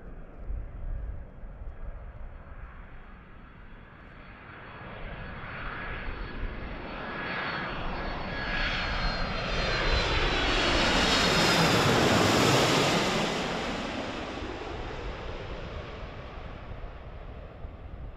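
Boeing KC-767 tanker's twin turbofan jet engines on landing approach, flying low overhead. The noise builds to its loudest about eleven to thirteen seconds in, sweeps down in pitch as the jet passes, then fades as it flies on towards the runway.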